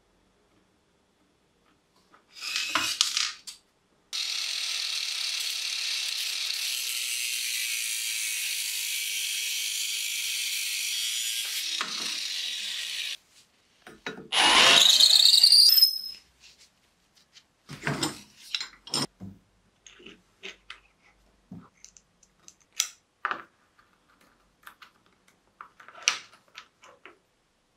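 A power tool runs steadily for about nine seconds. Then a cordless drill with a cone-shaped deburring bit spins up on the end of a steel rod held in a vise, loud and rising in pitch, chamfering the cut end. Light clicks and knocks of small metal and wooden parts being fitted together by hand follow.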